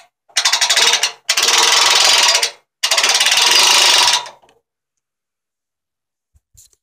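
Hand-crank winch ratchet clicking rapidly as the handle is turned, the pawl snapping over the gear teeth in three spells of cranking, winding in the cable to raise the homemade wrecker boom.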